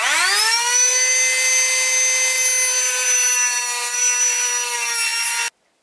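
Cordless Milwaukee rotary tool with a cutoff wheel spinning up to a steady high whine within half a second, then grinding through the metal bulb-socket flange of a headlight reflector. It cuts off suddenly near the end.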